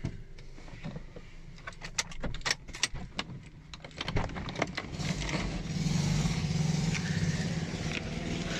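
Car keys jangling and clicking as a Toyota ignition key is turned and pulled from the ignition. From about halfway, a louder steady noise with a low hum takes over.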